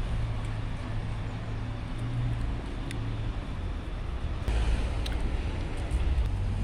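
City street ambience: a steady low hum of traffic, swelling about four and a half seconds in.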